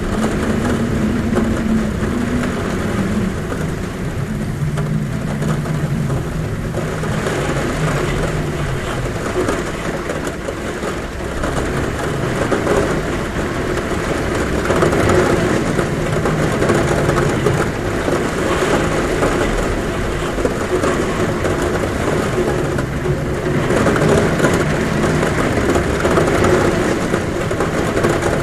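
Heavy rain falling on a roof as a steady, loud rush, with a low wind hum whose pitch slowly wanders.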